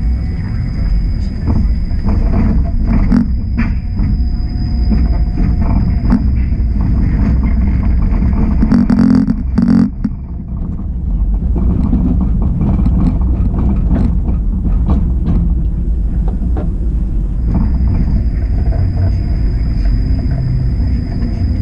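Busy downtown street noise: a steady low rumble of traffic, with a brief louder burst about nine seconds in.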